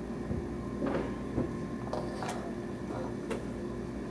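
Room tone: a steady electrical hum with a few faint clicks and taps.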